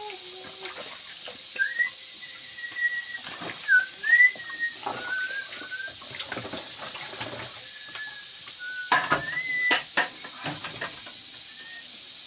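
Steady hiss of food cooking on the fire, with scattered clinks and knocks of kitchenware. Several short high chirping tones come through, one held for about a second early on and a few more around the middle and about nine seconds in.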